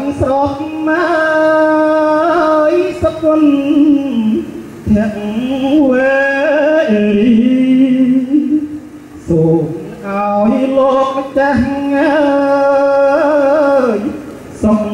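A single voice singing a slow, melodic chant in long held notes that waver and slide. The phrases are separated by short breaks about five seconds and about nine seconds in.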